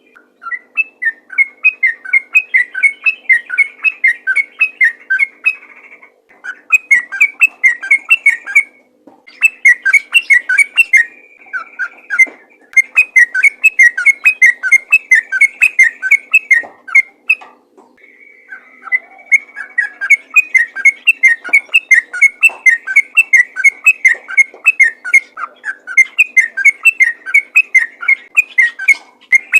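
Yellow-vented bulbul singing a rapid, continuous run of loud bubbly whistled notes, several a second, in long phrases broken by brief pauses about six, nine, twelve and seventeen seconds in. This is the nonstop 'ropel' song used to goad other bulbuls into singing.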